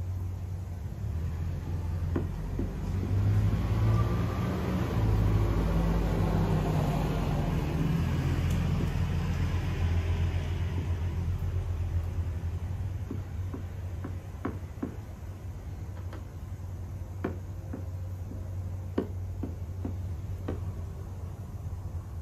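Steady low rumble with a passing road vehicle that swells and fades over about ten seconds. A few faint, sharp ticks follow in the second half.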